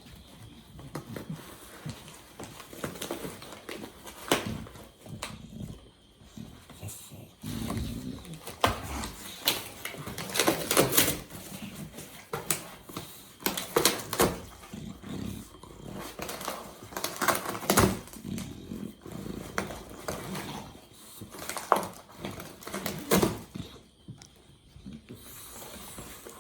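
A bulldog making vocal sounds in short, irregular bursts, with scattered clicks and knocks in between.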